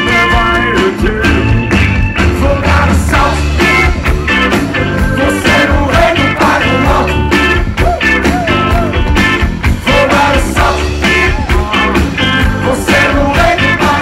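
Live rock band playing with electric guitars, keyboards and drums, loud and continuous.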